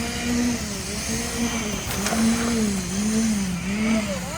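Concrete mixer's engine running, its pitch dipping and rising over and over, about every half second. A single sharp click about two seconds in.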